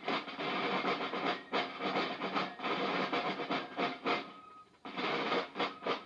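A line of rope-tension snare drums played together in a fast, dense stream of strokes and rolls. The drumming breaks off briefly a little after four seconds in, then starts again.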